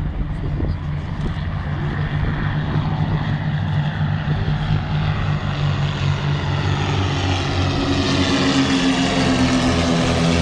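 Propeller aircraft engines droning as planes fly past, growing a little louder. A whine slides down in pitch in the second half as an aircraft passes.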